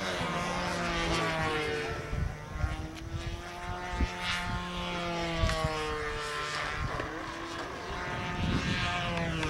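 Control-line stunt model airplane's engine and propeller droning in flight. Its pitch slowly falls and rises again as the plane circles on its lines.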